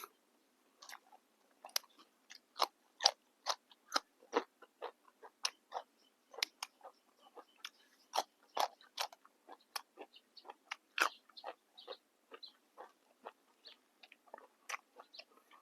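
A person chewing crisp, fresh raw vegetables: irregular crunchy bites, a few crunches a second.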